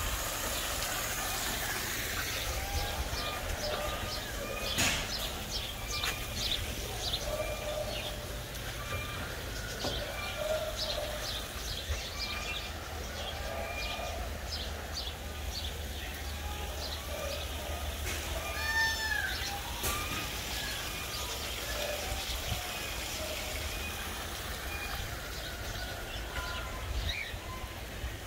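Outdoor ambience of many small birds chirping and calling in short repeated notes over a steady low rumble.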